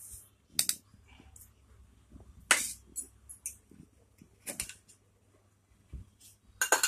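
A few scattered light clinks and knocks of stainless steel kitchenware being handled: vessels, a lid and a spoon around a mixer-grinder jar. The strongest knock comes about two and a half seconds in, and a quick run of clinks near the end.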